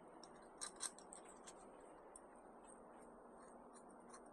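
Near silence broken by faint small clicks and ticks of small parts being handled, with two slightly louder clicks just under a second in.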